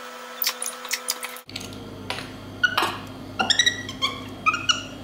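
Capuchin monkey handling a plastic juice bottle: scattered clicks and knocks of the bottle and its cap. In the second half come a few short, high chirps that fall in pitch.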